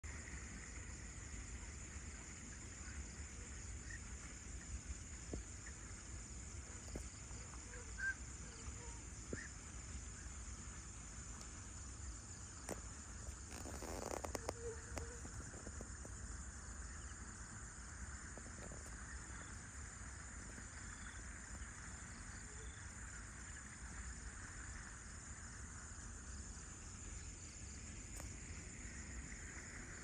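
Faint scattered bird calls over a steady low rumble and a steady high whine, with a louder cluster of calls about halfway through.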